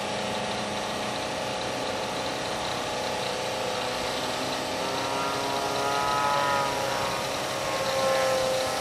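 DLE 50cc single-cylinder two-stroke gas engine of a 27% Extra 330S RC airplane in flight, turning a 22x8 propeller. The engine note runs steadily, then shifts slightly up and down in pitch about halfway through and grows a little louder in the second half.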